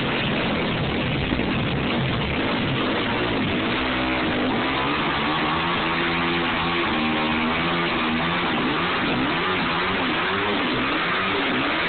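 2009 Yamaha YZ250F's four-stroke single-cylinder engine revved hard during a burnout, spinning the rear tire on concrete to smoke it. The revs rise and fall over and over from about four seconds in.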